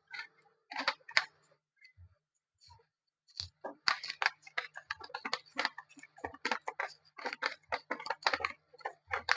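Fast, scratchy rustling and rubbing strokes, starting about three seconds in, as a laser printer's Teflon fuser film sleeve is wiped clean by hand, with a few small clicks of handling before.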